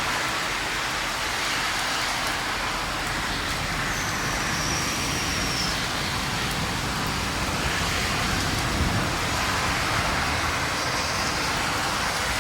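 Heavy rain falling in a steady hiss. A brief thin high tone, falling slightly in pitch, sounds about four seconds in.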